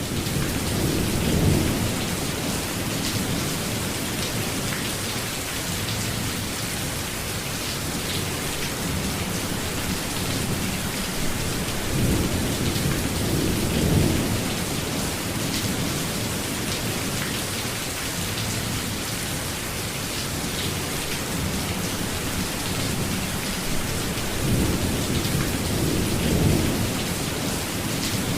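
Steady rainstorm: continuous rainfall with three low rolls of thunder, about a second in, around the middle, and near the end.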